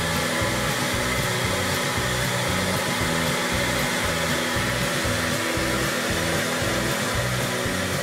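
A Tefal Respect Moving Air 1850 W hair dryer runs with a steady, even rush of air, over background music.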